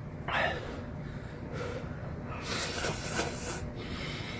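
A person slurping hot ramen noodles from chopsticks in several short noisy pulls, with breaths in between.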